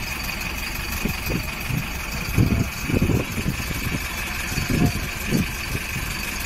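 Bus engine idling, a steady din, with several short low thumps.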